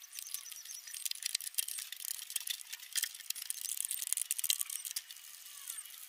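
Irregular small metallic clicks and clinks of steel bolts and a spanner as the stator mounting bolts of an LG direct-drive washing machine motor are loosened and taken out by hand.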